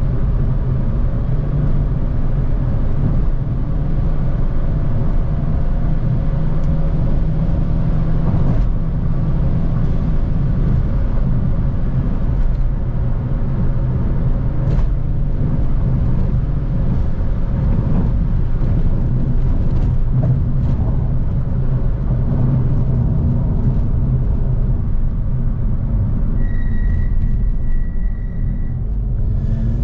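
Inside the cabin of a Citroën DS4 at cruising speed: the 1.6 turbo petrol engine's steady drone mixed with low tyre and road rumble.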